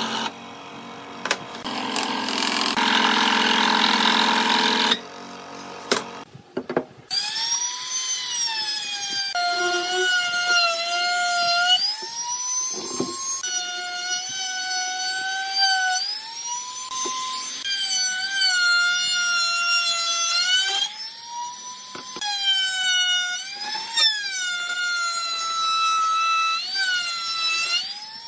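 A Ryobi scroll saw runs and cuts for about the first five seconds. After that a handheld trim router gives a high whine, its pitch dipping and climbing back again and again as it cuts along the edge of a wooden board.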